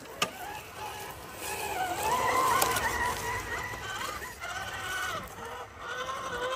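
Electric motor and gearing of radio-controlled scale crawler trucks whining, the pitch rising and falling with the throttle, with a sharp click shortly after the start.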